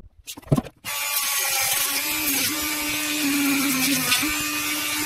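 Rotary tool on a flexible-shaft extension starting about a second in and then running steadily, its round grinding stone grinding leftover spot-weld points off the tops of used lithium-ion cells. Its pitch sags slightly now and then as the stone bites.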